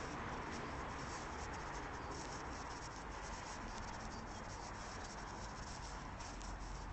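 Faint scratchy rustling over a steady hiss: a handheld phone's microphone carried along while walking on grass.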